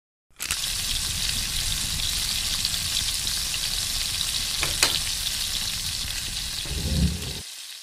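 Food frying in hot oil: a steady sizzle and crackle that starts abruptly, with a sharp click about halfway through and a low thump shortly before it dies away near the end.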